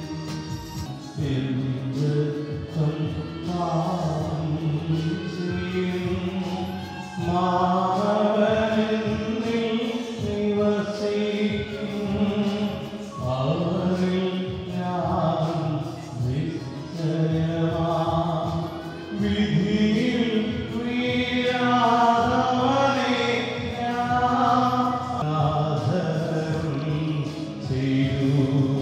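Church choir of men's and women's voices singing a hymn through microphones, accompanied by an electronic keyboard, in steady sung phrases with held notes.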